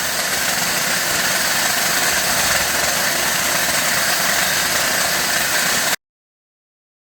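Steady, loud machine noise, an even hissing whir without rhythm, that cuts off abruptly about six seconds in.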